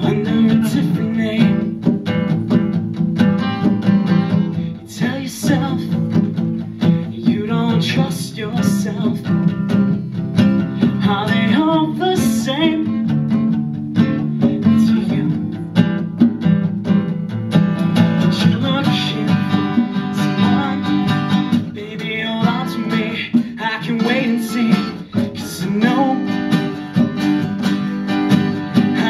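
Live acoustic performance: two acoustic guitars strummed together, with a man singing into a microphone at times.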